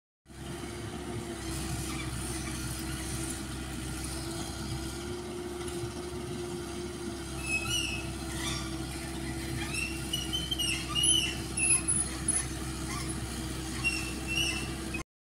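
Komatsu PC78UU-6 mini excavator's diesel engine running steadily while it works, with a steady whining tone over a low hum. From about halfway, short high squeaks come and go.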